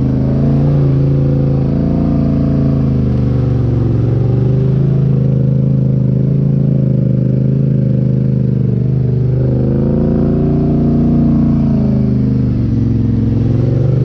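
Polaris Sportsman 850 HighLifter ATV's parallel-twin engine running at low speed through a Big Gun Evo U exhaust. The engine note dips and rises a few times as the throttle eases off and comes back on.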